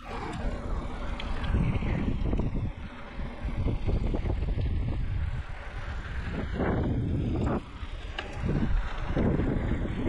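Wind buffeting the microphone on a moving bicycle, with rumble from the tyres on the road, swelling in gusts.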